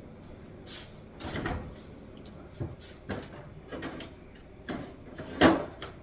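Kitchen doors and cupboards being opened and shut, a series of knocks and clunks with the loudest near the end.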